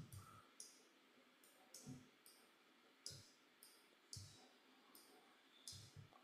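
Faint computer mouse clicks, about ten of them spaced unevenly over several seconds, in near silence.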